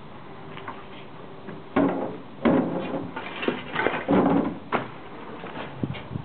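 Footsteps crunching and scraping over rubble and loose rusted metal scraps on a steel walkway: a run of irregular, loud crunches and knocks starting a couple of seconds in, with one more near the end.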